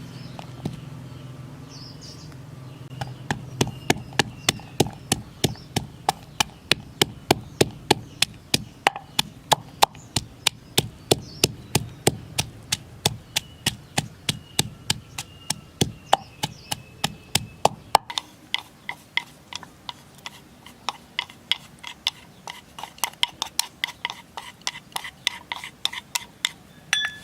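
Kitchen knife chopping quickly on a cutting board, sharp even strokes about three a second, mincing ingredients for a dipping sauce.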